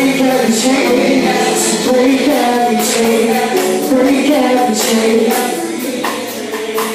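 Live gospel band and singers performing a worship song, with sustained voices over the band and regular bright percussion strokes on the beat; the music eases slightly near the end.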